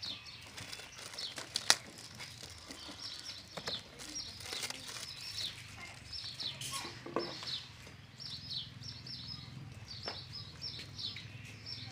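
Small birds chirping over and over, many short high falling chirps. A single sharp click a little under two seconds in is the loudest sound.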